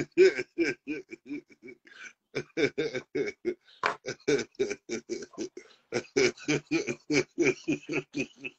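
A man laughing hard: a long run of rapid, short pitched bursts, about four or five a second, with a brief break about two seconds in.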